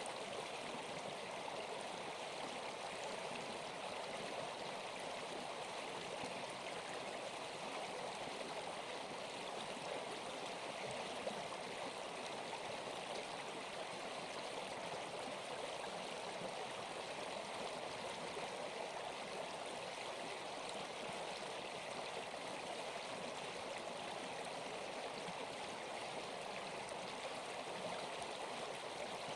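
Steady, even rush of a flowing stream, water running without a break.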